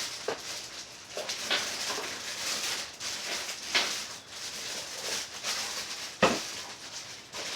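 Packaging rustling and crinkling, with irregular scrapes and taps as a keyboard is unwrapped and handled, and one sharp knock about six seconds in.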